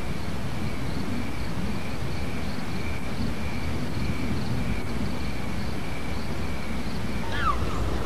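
Night ambience: insects chirping in a steady, evenly pulsing chorus over a low rumble. Near the end a bird starts calling in short falling chirps.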